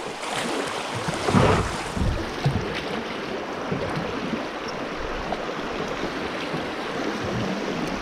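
River water rushing steadily, with a few low thumps in the first couple of seconds.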